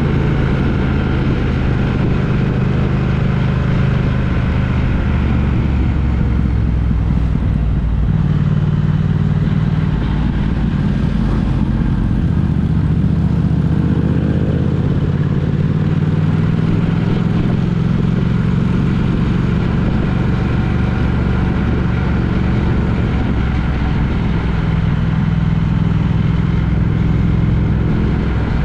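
Road vehicle running at speed: a steady low engine drone with road noise, its pitch shifting slightly every few seconds as the engine speed changes.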